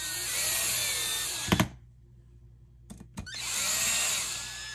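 Handheld power drill-driver running in two bursts, driving the screws into an airsoft gearbox shell. The first run ends in a couple of sharp clicks about a second and a half in; the second starts about three seconds in.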